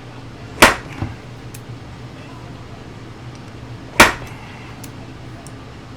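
Two sharp hammer blows on a rivet former, about three seconds apart, with a lighter knock just after the first: a rivet on a toy train car's sheet-metal chassis being flattened and mushroomed down snug.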